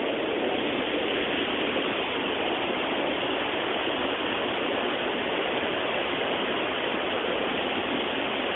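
Waterfall with many streams of spring water shooting out between layers of rock, making a steady, even rush of falling water.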